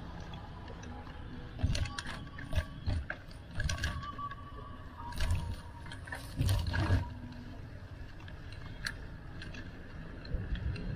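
Bicycle clicking and rattling as it is ridden: irregular clusters of sharp clicks and knocks over a steady low rumble.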